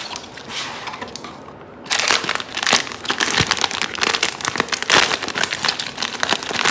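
Plastic packaging of a blind-box figure crinkling as it is handled and unwrapped by hand, quiet at first and then a dense run of crackling from about two seconds in.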